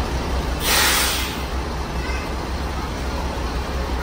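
Higer coach's diesel engine running with a steady low rumble, and a loud burst of air-brake hiss about half a second in, lasting under a second.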